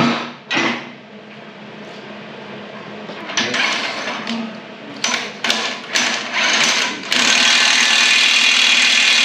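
A sharp knock or two, then a power tool run in several short bursts, and from about seven seconds in held on steadily.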